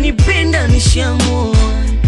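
Bongo Flava pop song: a male voice singing in Swahili over a steady deep bass and a beat of low kick drums that drop in pitch.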